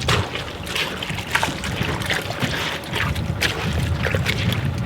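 Water sloshing and splashing in quick, irregular bursts as laundry is hand-washed in a bucket of water.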